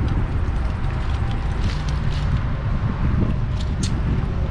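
Wind buffeting the microphone: a steady low rumble, with a few faint clicks now and then.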